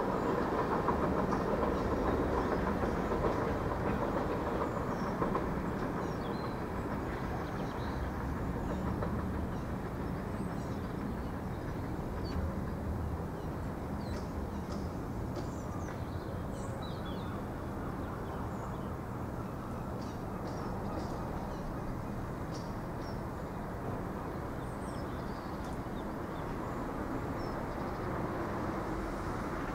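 Irish Rail 8300 class DART electric multiple unit pulling away. Its running noise is loudest at first and fades over the first several seconds into a steady distant rumble as the train recedes.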